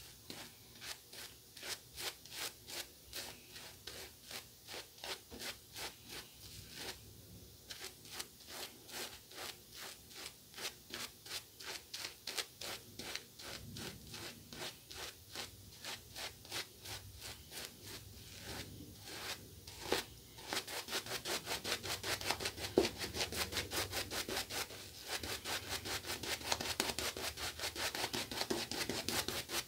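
A two-band badger shaving brush scrubbing lather onto a stubbly face in quick, rhythmic strokes, about two or three a second. The strokes get louder and faster about two-thirds of the way through.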